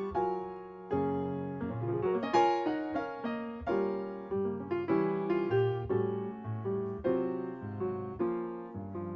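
Solo piano music: notes and chords struck a few times a second, each ringing and fading.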